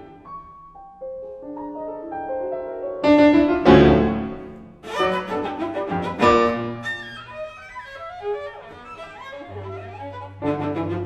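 Cello and piano duo playing a contemporary classical piece. It starts quietly, has loud accents about three to four seconds in and again about six seconds in, and ends on a long low held note.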